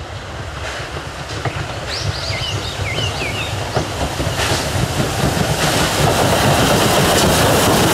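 Steam locomotive hauling a passenger train, its running noise growing louder as it approaches. A few brief high squeals come about two to three seconds in.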